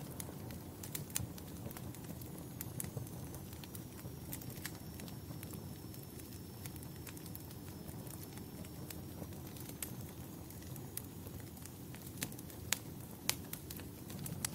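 Wood fire crackling: irregular sharp pops and snaps over a steady low rumble of flame. A faint thin high whistle drifts slightly down and back up through the middle.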